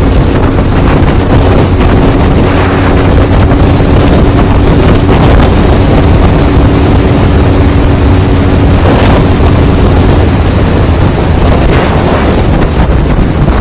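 Loud wind rush on the microphone of a camera mounted on a motorcycle riding at road speed. The motorcycle's engine drones steadily underneath until it drops away about ten seconds in.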